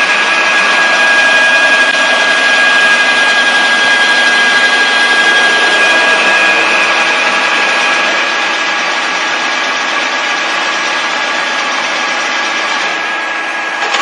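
Universal milling machine (UFM 4) running, its cutter milling a metal block held in a vise as the table feeds: a steady machining noise with a constant high whine, easing slightly about eight seconds in.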